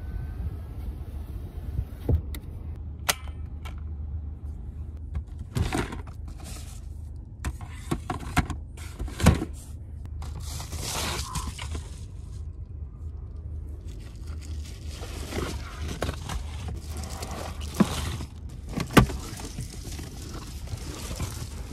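Rustling and scraping as quilted reflective window covers inside a car are handled and pulled down, broken by sharp clicks and knocks, over a steady low hum.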